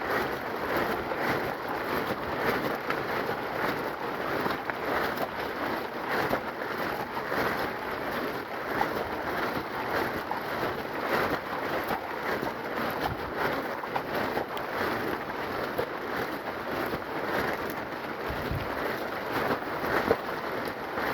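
Steady rain falling, a dense patter of many small drops with a continuous hiss. There is a brief low thump near the end.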